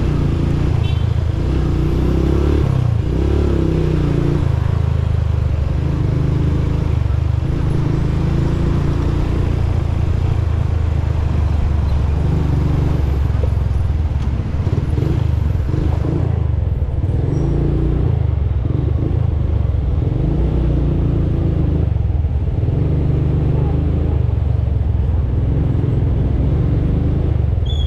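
Motorcycle engine running while riding, its pitch rising and falling as the speed changes, over a steady rushing noise.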